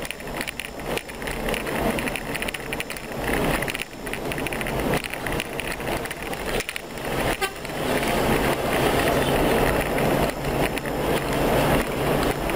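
Vehicle driving on a rough dirt road, its engine and the road and wind noise rumbling and rattling together. It grows louder about two-thirds of the way in.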